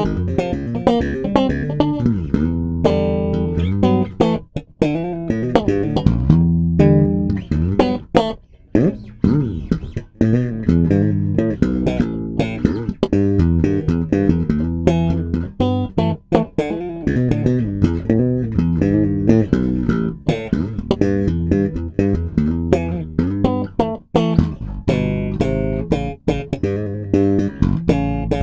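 Jones SM1 electric bass guitar being played: a busy line of plucked notes with a few short breaks.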